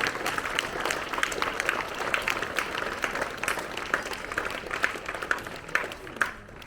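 An audience of schoolchildren and teachers applauding a named prize winner, many claps blending into steady clapping that thins out and fades near the end.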